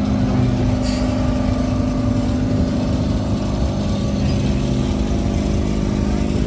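Blackpool Boat open-top electric tram moving slowly past, with a steady hum.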